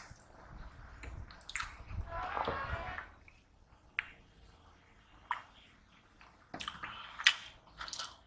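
Close-up drinking from a small clay cup: a wet sip and swallow about two seconds in, followed by several short, sharp wet mouth clicks and smacks.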